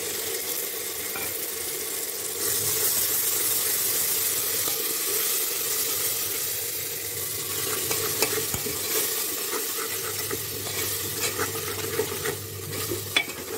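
Tomato purée sizzling in hot masala fried in mustard oil in an aluminium pressure cooker while a spoon stirs it; the sizzle swells about two seconds in, and the spoon clicks and scrapes against the pot near the end.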